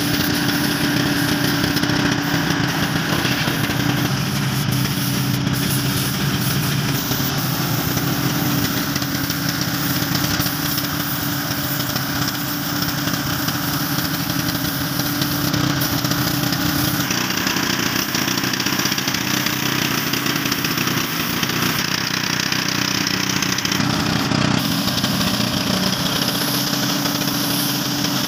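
An engine running steadily, with the hiss of compressed air from a gravity-feed paint spray gun over it.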